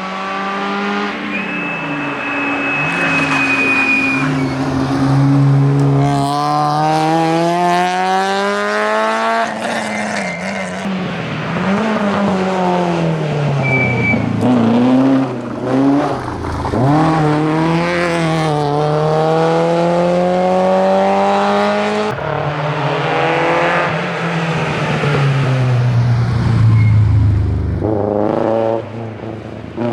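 Rally car engine at full throttle, the revs climbing through upshifts and dropping on braking and downshifts several times, with a short high tyre squeal near the start.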